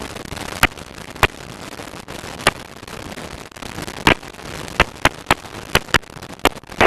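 Aircraft intercom/radio audio feed hissing steadily while nobody transmits, broken by scattered sharp crackling clicks. A loud rush of noise cuts in right at the end as the line opens.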